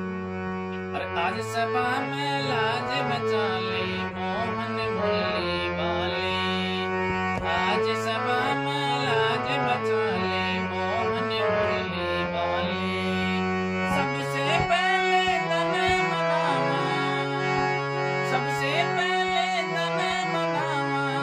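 A man sings a Hindi devotional bhajan in a wavering, ornamented solo voice over his own harmonium, which holds sustained reed chords. There is no drum accompaniment.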